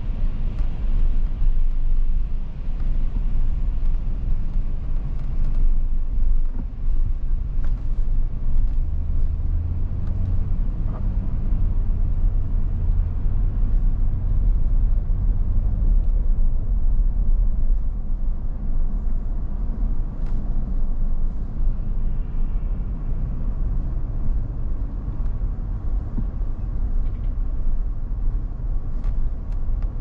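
A car driving, heard from inside its cabin: a steady low rumble of engine and road noise, with a few faint ticks.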